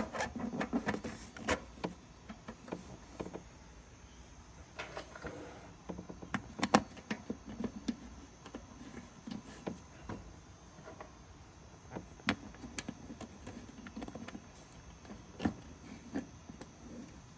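A motorcycle's tank cover being handled and fitted back into place: irregular clicks, taps and knocks, some in quick clusters.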